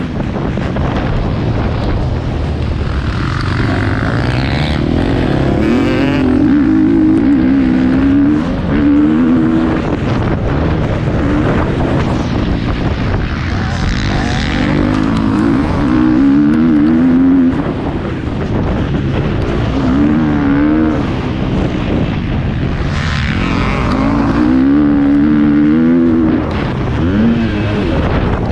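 Motocross bike engine heard from on the bike, its pitch rising and falling again and again as the rider opens and shuts the throttle and shifts gears around the track, over a steady rough noise.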